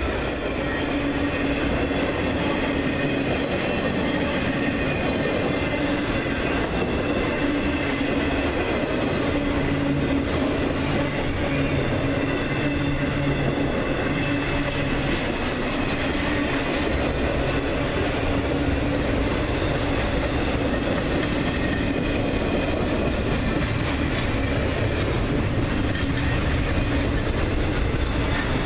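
Intermodal freight train's cars rolling past close by, carrying trailers and double-stacked containers: steady noise of steel wheels running on the rails, at an even level throughout.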